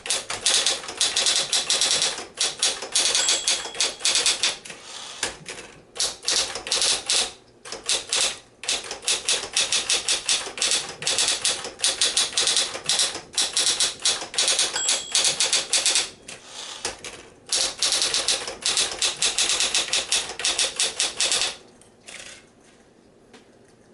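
Smith-Corona Electra 120 electric typewriter typing at a quick pace, fast runs of key strikes broken by short pauses. The typing stops about two seconds before the end.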